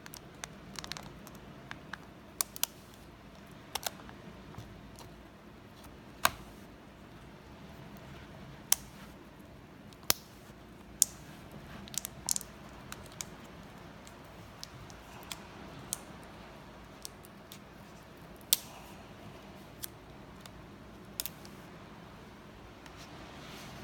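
Irregular sharp clicks and light taps, spread out with short pauses between, from hands handling a laptop's LCD screen panel and display cable during a screen swap.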